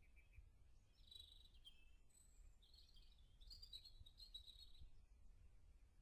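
Faint songbird singing short, high, warbling phrases, once about a second in and again from about two and a half to five seconds in, over a low steady rumble.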